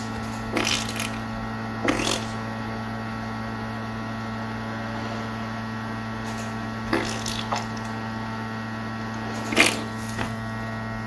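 Steady electrical mains hum with a few short, light clicks and taps of work at the bench. The loudest click comes about nine and a half seconds in.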